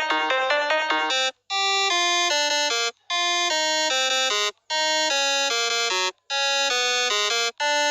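Electronic tune with a ringtone-like sound. A fast run of repeated notes cuts off about a second in, then a melody follows in short phrases of about a second and a half, each separated by a brief silence.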